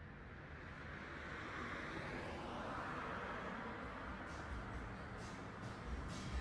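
A soft rush of noise that swells to a peak about three seconds in and then eases off, like an edited whoosh or riser effect.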